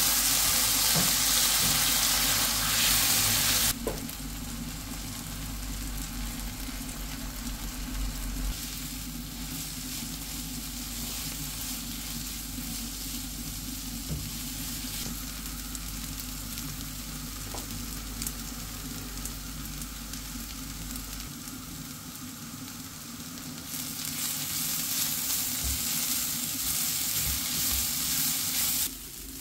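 Tomatoes, onions and grated coconut sizzling in a non-stick frying pan while a silicone spatula stirs them. The frying is loudest for the first few seconds and again near the end, quieter in between.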